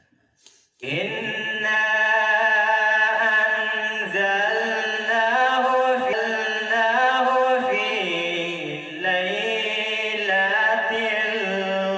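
A man's voice reciting the Quran in a melodic chant, beginning about a second in after a short pause, with long held notes that bend and glide in pitch.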